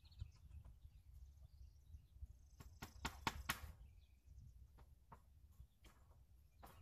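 Faint clicks and knocks from hand work on a wooden fence rail, over a low rumble: a quick cluster of about five near the middle and one more near the end.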